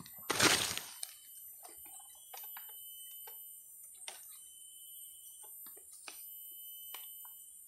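Scattered small clicks and snaps of bamboo stakes and twigs handled at close range while a snare is set, after one loud brief rustle just under a second in. A faint steady high tone runs underneath.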